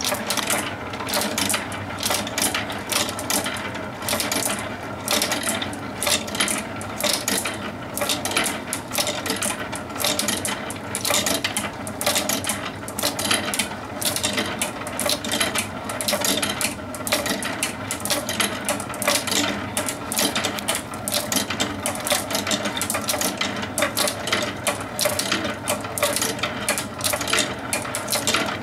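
Handcrafted wooden steel-ball clock running: its steel balls and wooden ball-lift mechanism clicking and clinking in a dense, unbroken stream of small sharp clicks at an even level.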